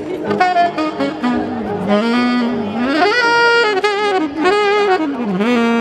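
Saxophone playing a jazzy melody with sliding notes, one note held for about a second midway.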